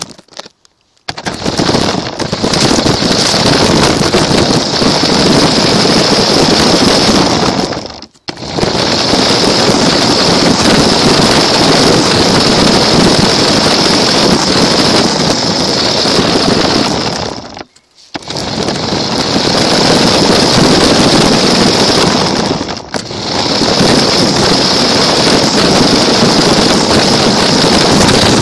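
Small toy car carrying the camera driving, its motor whining and its wheels rattling loudly right at the microphone. It cuts out and starts again three times in short pauses.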